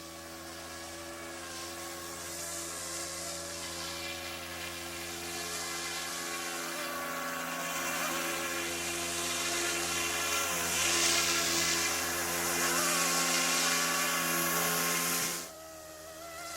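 Yuxiang F09 Black Hawk RC helicopter's electric motors and rotors in flight: a steady whine whose pitch wavers up and down with the throttle. It grows louder toward the middle and drops off suddenly near the end.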